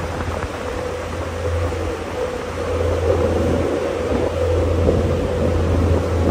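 Motorboat engine running steadily under way, a constant low hum, with the wake rushing and churning behind the stern.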